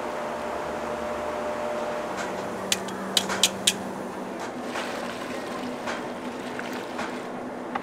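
Steady machine hum, with a quick run of four sharp clicks about three seconds in and a few fainter ticks after.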